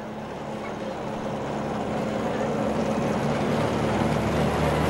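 Engine of a small vintage Shell-BP aviation fuel bowser running as it drives past, growing steadily louder as it comes closer.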